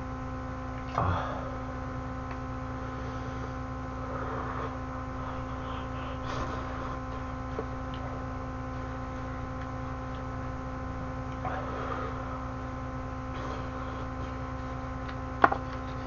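Steady electrical hum with faint eating sounds from a man eating ramyeon. A sharp clink of metal chopsticks against a stainless steel pot comes near the end.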